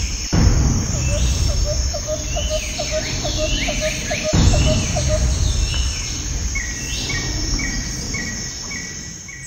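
Birds chirping and calling over a steady low rumble, with a quick run of short ticks, about three a second, through the first half. Near the end a short call repeats evenly.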